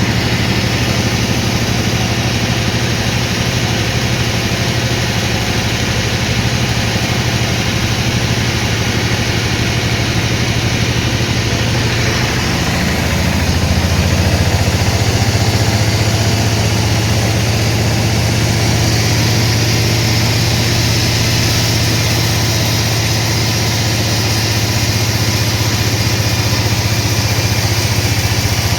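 Sawmill machinery running steadily with a loud low hum; about halfway through its pitch drops a little and it grows slightly louder.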